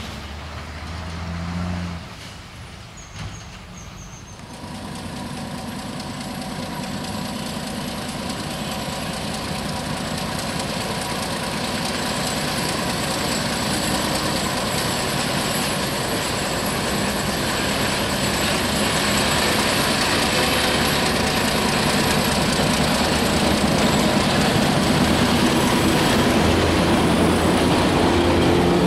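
Broad-gauge diesel locomotive passing close by with its engine running, followed by its passenger coaches rolling past on the rails. The noise builds steadily louder from about four seconds in.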